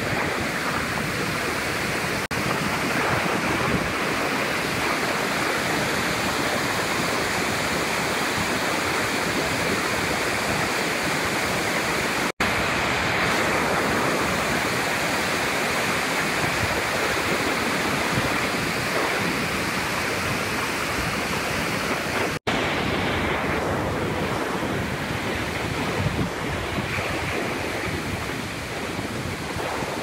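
Steady rushing of river water pouring over a wide waterfall and its stepped cascades. The sound drops out for an instant twice, and in the last third it turns a little duller.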